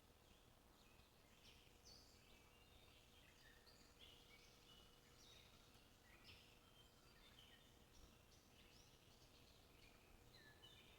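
Faint bird chirps: many short, high calls, some overlapping, over a low steady hiss.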